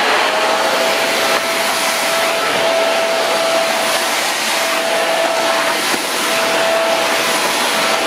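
Woly cyclonic vacuum cleaner running at full suction, a steady whine over the rush of air, as its floor brush is pushed across a hard floor.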